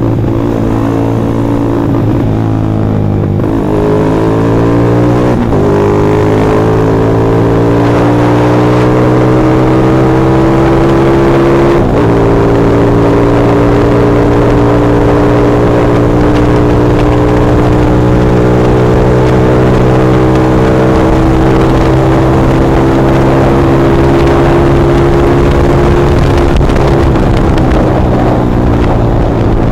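Yamaha Jupiter MX underbone motorcycle engine accelerating through the gears. Its pitch climbs, drops back at gear changes about three and a half, five and a half and twelve seconds in, then rises slowly for a long stretch and falls away near the end as the bike slows.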